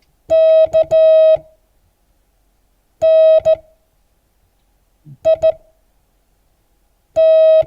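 Morse code practice tone at one steady pitch, sent one letter at a time with long pauses between letters: dah-dit-dah (K), dah-dit (N), dit-dit (I), dah (T), spelling "knit".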